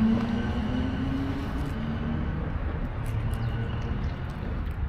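Low rumble of a passing motor vehicle, its engine tone rising slightly before fading, with faint crunching clicks from a cat chewing dry kibble close by.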